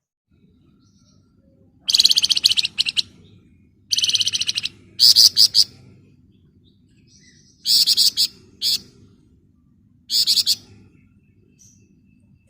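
Flamboyan songbird giving five bursts of dense, rapid rattling trill (ngebren), each about half a second to a second long and made of fast high pulses.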